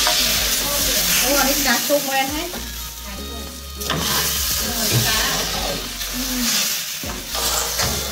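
Banh chhev batter sizzling loudly in a hot aluminium wok as it is poured and spread with a ladle.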